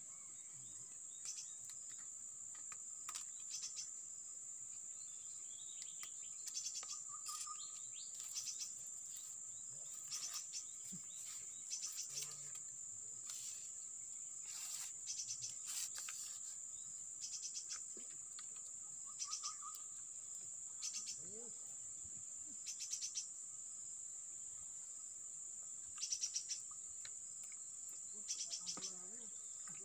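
Insects droning steadily at a high pitch, with short chirping trills breaking in every couple of seconds and a few faint bird calls.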